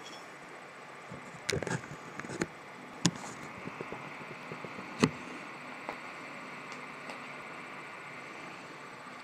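Handling noises: a handful of sharp clicks and knocks, the loudest about three and five seconds in, as a clarinet joint and a small screwdriver are picked up and handled, over a steady faint hiss.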